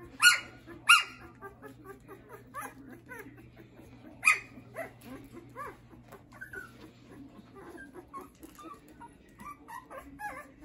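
Schapendoes puppies whimpering and squeaking continually, with three loud sharp yips, two in the first second and one about four seconds in.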